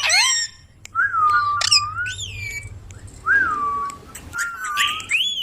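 Indian ringneck parrot giving a series of whistled calls: separate gliding notes that swoop up and down in pitch.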